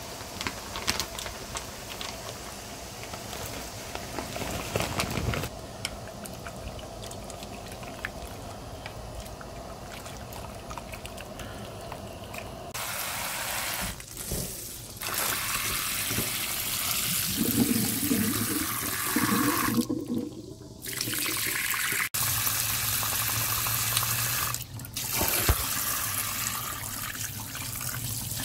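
Water at a rolling boil in a pot of jjolmyeon noodles, then louder running and splashing water, broken by several abrupt cuts, as the noodles are drained in a sieve and rinsed under cold water.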